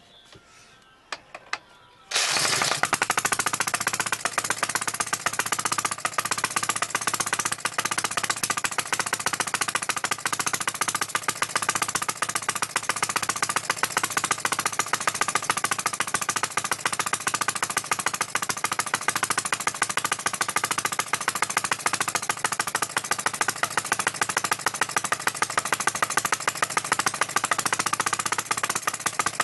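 Home-built Webster model engine, a single-cylinder air-cooled four-stroke on petrol, running with a rapid, even stream of firing beats that starts abruptly about two seconds in after a few light clicks. It is running too rich, with popping and a slight misfire.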